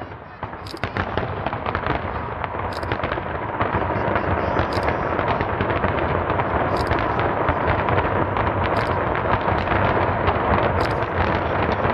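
Fireworks going off in a dense barrage, many bangs and crackles running together. The barrage gets louder over the first few seconds and then holds steady, with a brief high hiss about every two seconds.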